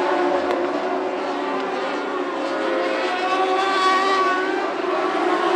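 Several Lightning sprint cars (mini sprints with motorcycle engines) racing at high revs, their engine notes overlapping; one rises in pitch around three to four seconds in as it comes past.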